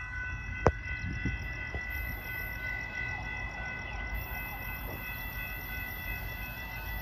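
Railroad crossing warning bell ringing steadily as a train approaches, over a low rumble, with one sharp click under a second in.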